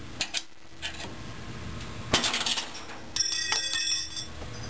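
Hands working on a washer's metal cabinet and parts: a few light clicks, a short scrape about two seconds in, then a brief bright metallic ringing clatter a little after three seconds.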